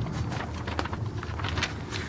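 Paper pages of a printed instruction booklet rustling and crackling as they are handled and turned, with a sharper crackle at about three-quarters of a second and another at about one and a half seconds, over a steady low hum.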